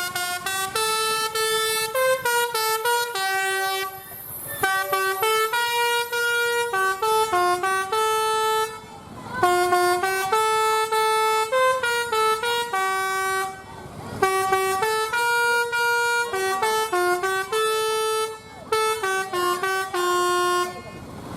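Bus's Basuri telolet melodic horn playing a tune: quick runs of clear stepped notes, in several phrases broken by short pauses.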